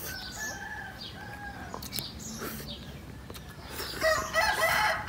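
A rooster crowing: a fainter drawn-out crow near the start, then a louder crow about four seconds in.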